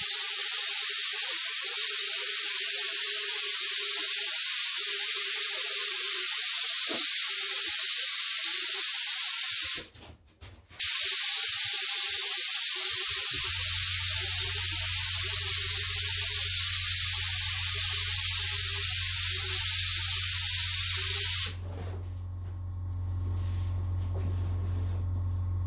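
Paint being sprayed onto motorcycle fairing plastics: a loud, steady hiss in two long passes with a short break between them, stopping a few seconds before the end. A steady low hum comes in partway through and continues after the spraying stops.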